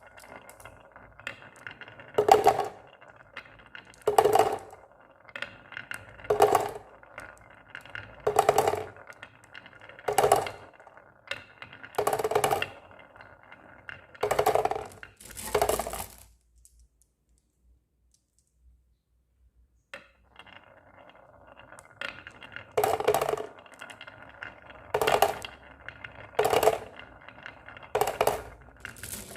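Marbles rolling and clattering down a marble run, with a loud clack about every two seconds over a steady rolling rattle. About halfway through it stops for roughly four seconds, then starts again.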